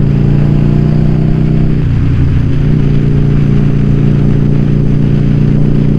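Yamaha XV750 Virago's V-twin engine running steadily under way on the road. About two seconds in, the engine note briefly breaks, then settles back to a steady note.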